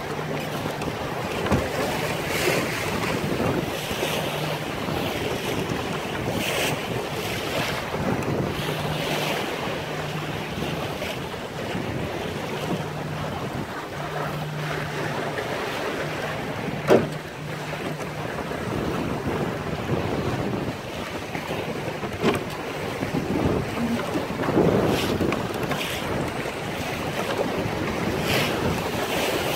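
Wind buffeting the microphone over the rush and slap of choppy waves against the hull of a 19-foot O'Day Mariner sailboat under sail in rough, confused water. A single sharp knock sounds a little past the middle.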